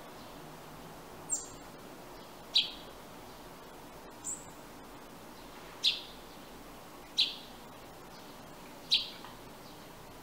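Sparrow giving single sharp chirps, one every one to two seconds, with two thinner, higher calls in between, over a steady hiss.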